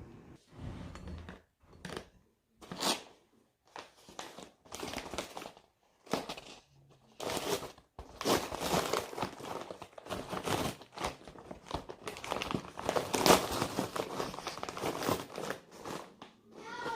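Paper microwave popcorn bag being torn open and crinkled, in irregular rustling bursts with short pauses between them.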